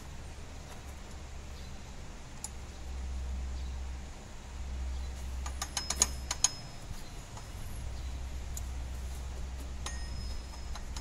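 Sharp metallic clicks and clinks of hand work on a Toyota Hilux engine's timing gears: a single click about two seconds in, a quick cluster of clinks around the middle, and another click near the end, over a steady low rumble.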